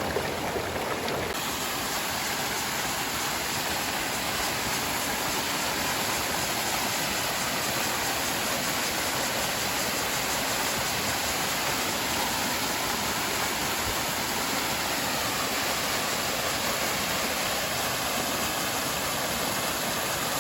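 Steady rushing of flowing water, such as a stream or small waterfall, as an even, unbroken noise.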